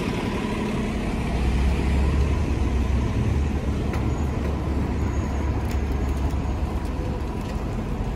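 City street traffic: a steady low engine rumble from cars and buses moving and idling close by, swelling slightly about two seconds in.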